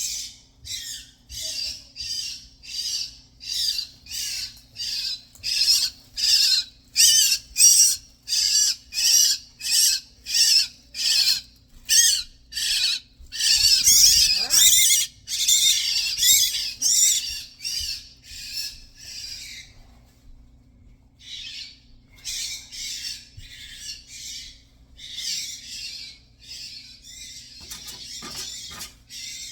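A bird in an exhaust vent giving short, harsh, raspy calls, about two a second. The calls are loud at first, pause briefly about two-thirds of the way in, then carry on more softly.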